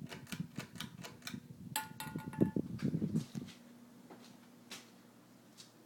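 1987 Air Cool 42-inch hugger ceiling fan being switched up to high: a quick run of clicks and a brief ringing tone, then the motor running with a steady low hum.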